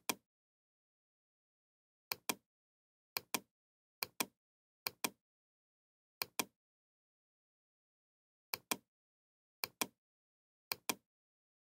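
Computer mouse button double-clicks, about nine pairs of sharp clicks at uneven gaps of one to two seconds, with dead silence between them.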